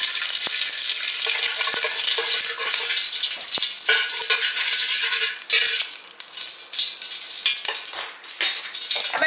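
Ghee sizzling as lumps of it melt in a hot steel pot, with a few sharp clinks of a metal spoon against the pot. The sizzle eases after about six seconds.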